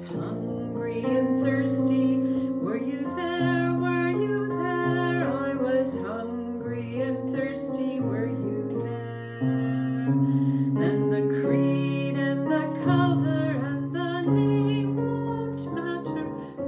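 A woman singing a hymn with instrumental accompaniment: a wavering sung melody over long held chord notes.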